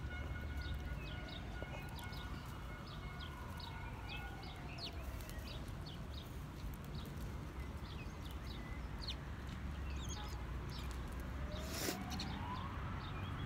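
Small birds chirping over and over, with a faint siren slowly rising and falling in pitch, once near the start and again near the end, over a steady low rumble.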